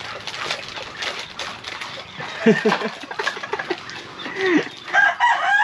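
A rooster crowing: one long call that starts near the end. Before it there is a steady background hiss.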